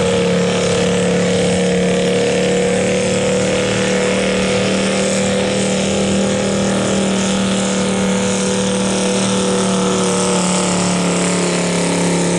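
Dodge pickup truck's engine running loud at steady revs under full load, dragging a weight-transfer sled on a truck-pull run.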